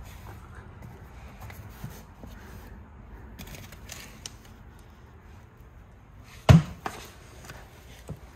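Foam and paper packing rustling as a boxed steel swivel seat base is unwrapped by hand, with a few small ticks. A single loud thump comes about six and a half seconds in, followed by a smaller one.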